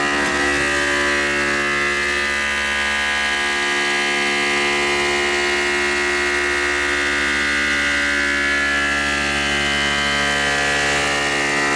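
Tormach PCNC 1100 CNC mill cutting 6061 aluminum with a 0.750-inch shear hog end mill at 4,000 RPM: a steady machining hum with many even overtones that holds level throughout.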